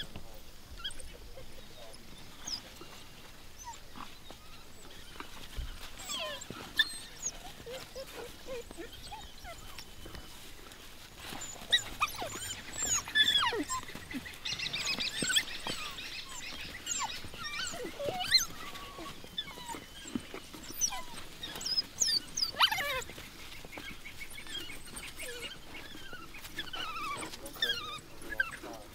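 A pack of African wild dogs twittering: many short, high-pitched chirps and squeaks overlapping, busiest through the middle stretch.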